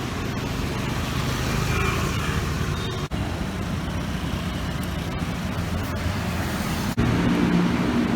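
Steady city road traffic noise, a low rumble of passing cars and motorbikes, with two brief dropouts about three and seven seconds in.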